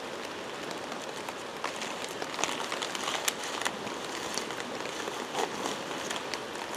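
Steady hiss of a fast-flowing creek running over stones, with scattered light crackles and clicks.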